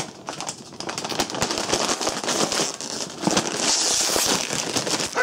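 Crinkling and crackling of a Lay's potato chip bag as it is handled and pulled open, with a louder, sharper stretch of crinkling near the end.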